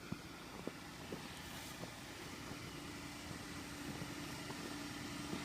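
Jeep engine idling with a steady low hum that grows slowly louder, over a soft background hiss; a few faint clicks in the first second or so.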